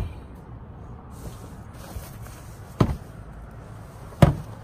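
Three sharp knocks over a low steady background, one at the start and two near the end about a second and a half apart, the last one the loudest.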